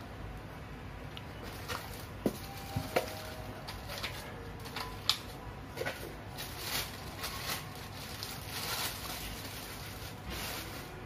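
Clear plastic wrapping crinkling and cardboard rustling as a nonstick frying pan is lifted out of its box and unwrapped. There are several sharp clicks and knocks in the first half, and the crinkling is heaviest in the second half.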